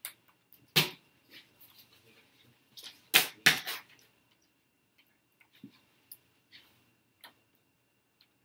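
Sharp knocks and clicks of handling, the loudest about a second in and twice around three seconds in, followed by fainter scattered ticks. A faint steady high whine runs underneath.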